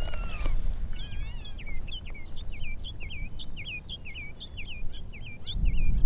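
Wind rumbling on the microphone, louder near the end, with a run of short high chirping calls, about three a second, from an animal that cannot be identified.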